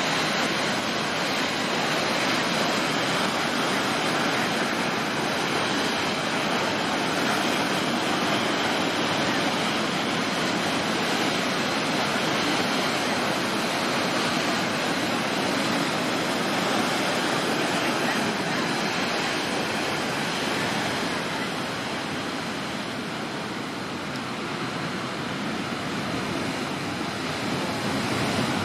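Storm waves breaking and surging along the shore in a rough sea, a continuous wash of water noise. It eases slightly about three quarters of the way through, then builds again near the end.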